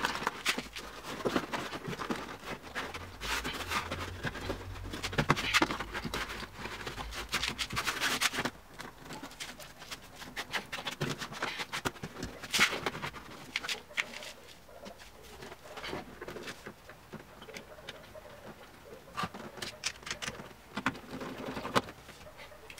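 Irregular rustling, clicks and light knocks as the foam insulation panel inside a BMW E39 front door is handled and pressed into place. A low hum runs for about six seconds in the first half.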